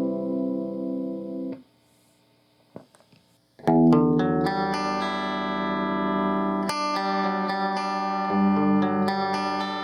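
Electric guitar played through a Fender tube combo amp: a held chord pulsing in volume is cut off about a second and a half in, a few faint string ticks sound in the short gap, then new chords are struck and left to ring from about four seconds in, changing twice.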